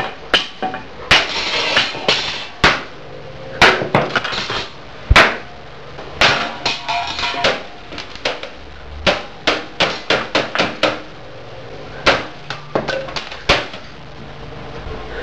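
A hammer repeatedly striking the plastic and sheet-metal case of a 1996 Gateway 2000 desktop tower, smashing in its front drive bays. The blows are sharp and irregular, some in quick runs of about four a second.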